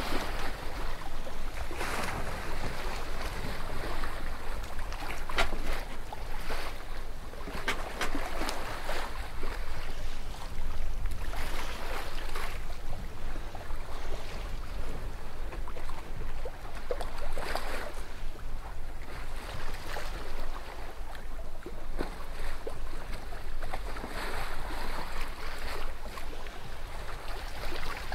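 Water splashing and sloshing with wind noise on the microphone, swelling and easing every few seconds, with a few short sharp splashes.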